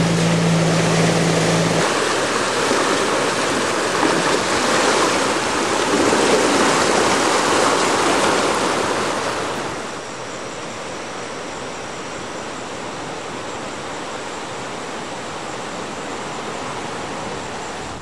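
Floodwater of a swollen creek rushing, a steady noise that steps down to a quieter level about ten seconds in. A brief low hum sounds during the first two seconds.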